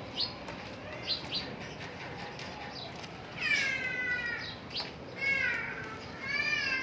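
Sparrows giving short, sharp, falling chirps. Three longer, drawn-out falling calls with a ringing, overtone-rich tone come in about halfway through and twice more near the end, and these are the loudest sounds.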